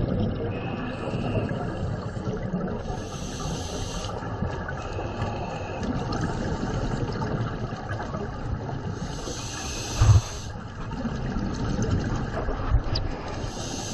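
Scuba regulator breathing and bubbles picked up by an underwater camera: a steady rush of water and bubble noise with three hissing breaths, about three, nine and thirteen seconds in. A short thump comes just after ten seconds.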